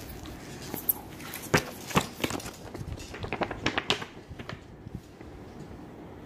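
Handling noise: a quick run of clicks, taps and rustles as the phone is moved about and things brush against it. The clicks are thickest from about one and a half to four and a half seconds in, then only a steady low background is left.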